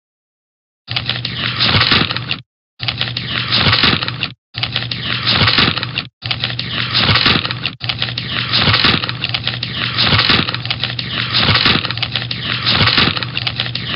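Newspaper rustling and crinkling, a dense crackle of paper in several stretches that start and stop abruptly, beginning about a second in.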